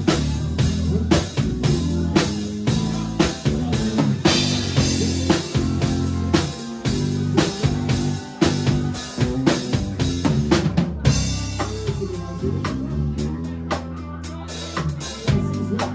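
Drum kit and electric bass playing live together: a steady kick-and-snare beat with cymbals over a moving bass line. About eleven seconds in, the cymbal wash cuts out briefly and lighter, quicker ticks take over.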